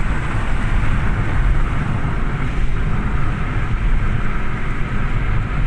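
Steady road and engine rumble heard inside a moving car's cabin at speed, mostly a low rumble with a hiss of tyre and wind noise over it.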